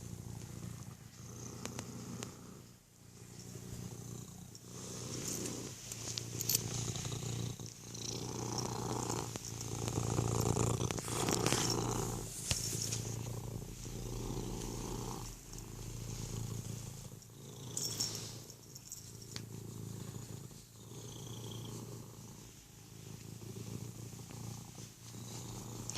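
Domestic cat purring steadily, the purr rising and falling in a regular cycle about every two seconds.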